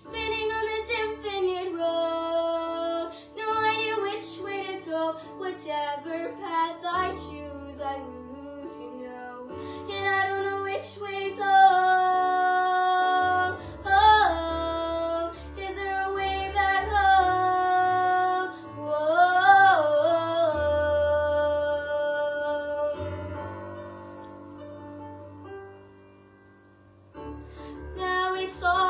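A girl sings a show tune solo over an instrumental accompaniment, with several long held notes. The singing fades to a quiet moment a little before the end and then comes back in.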